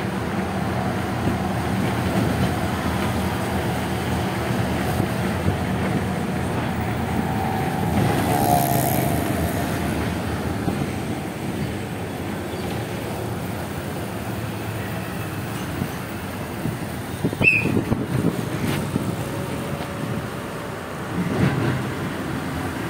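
Steady engine and road noise of a vehicle driving along a city road, heard from on board. A brief sharp click with a short high beep comes about three quarters of the way in.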